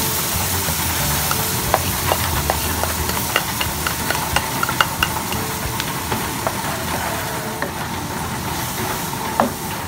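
Curry sauce poured into a hot non-stick wok of frying onions and peppers sizzles, while a wooden spatula scrapes and taps against the pan. The sizzle eases a little near the end.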